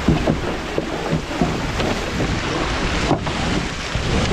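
Water rushing and spraying along the hull of an International 14 skiff sailing fast in strong wind, with wind blowing across the microphone and several short slaps of water against the hull.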